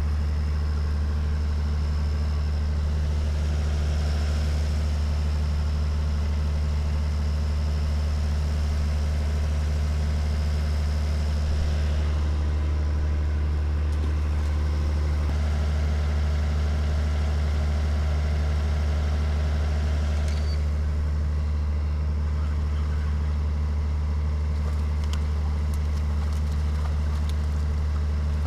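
A steady, unchanging low mechanical drone, like an idling engine or machinery running nearby.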